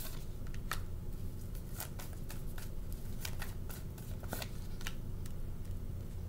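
Tarot cards being shuffled and handled by hand: a run of irregular short snaps and flicks of card stock, over a faint steady low hum.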